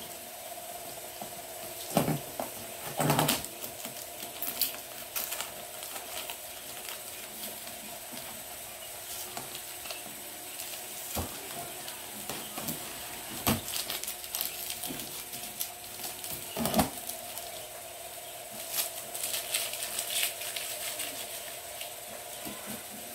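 Packing tape being picked at and peeled off a cardboard box, with crackling and scratching and a few sharp knocks of hands on the cardboard. A faint steady hum runs underneath.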